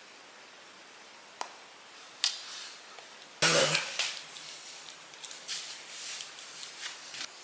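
Camera handling noise: a couple of small clicks, then a loud knock and rustling of fabric and hands against the microphone about three and a half seconds in, with scattered rustling after it.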